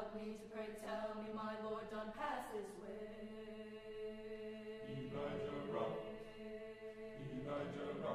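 Choir singing long, held chords that shift to new harmonies a few times.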